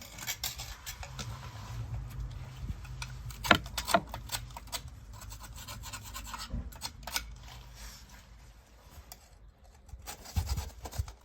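A hand tool scraping crusty carbon deposits off a metal part of a diesel heater that has burned waste oil: an irregular scratching, with a couple of sharper clicks about three and a half and four seconds in.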